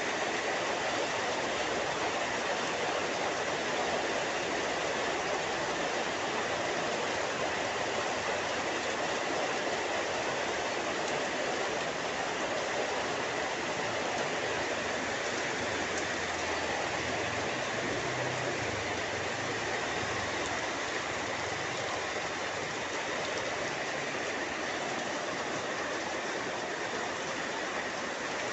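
Heavy rain pouring down steadily, a dense, even hiss that does not let up.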